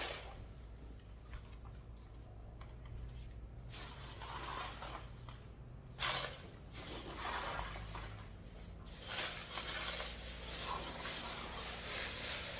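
Rustling, scraping handling noises as boxes and packets of stainless steel fasteners are shifted and emptied into storage bins, in swells about 6 s in and again from about 9 s, over a steady low hum.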